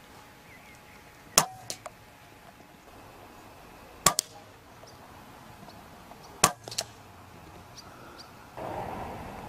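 Three rifle shots about two and a half seconds apart, each a short sharp crack followed by a fainter knock a fraction of a second later.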